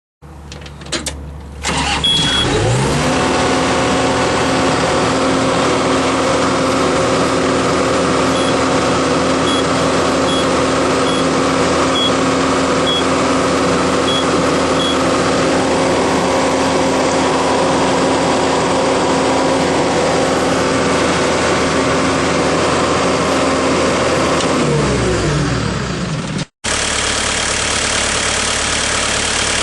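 New Holland LS170 skid steer's diesel engine starting about two seconds in, then revving up and holding a steady high speed for over twenty seconds. Near the end it drops back down, then runs steadily again after a brief cutout. A few short, high beeps sound in the first half.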